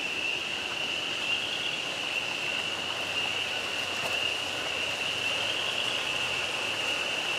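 Chorus of spring peepers, an unbroken high-pitched peeping, over the steady trickle and bubbling of aquaponics water and aeration.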